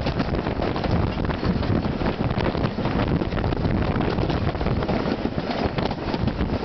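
Wind buffeting the microphone held out of a carriage window, over the steady running noise of a narrow-gauge Isle of Man Railway steam train hauled by the locomotive Kissack.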